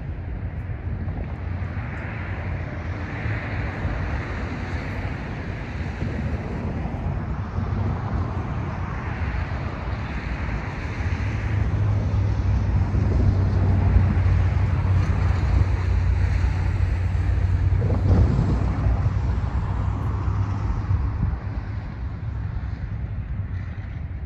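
Train passing: a steady low rumble that swells about halfway through and eases off near the end, with wind buffeting the microphone.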